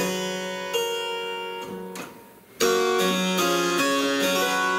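Harpsichord playing a short passage on one choir of strings, the plucked notes ringing and dying away; after a brief gap about two and a half seconds in, it plays again with two choirs sounding together, louder and fuller.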